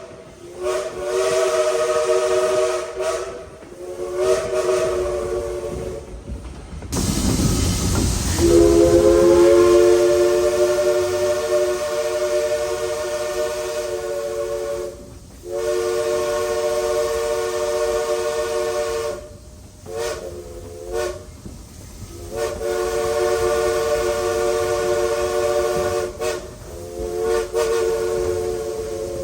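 Princeton three-chime steam whistle of Southern Railway 4501 blowing a series of blasts, a three-note chord: several long blows, the longest about six seconds, and a few short toots. One long blast opens with a gush of steam hiss and slurs up into the chord as the valve opens.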